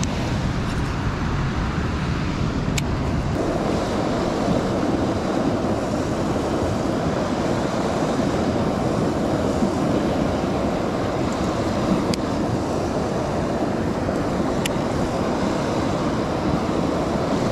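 Steady rush of fast-flowing river water churning below a dam spillway.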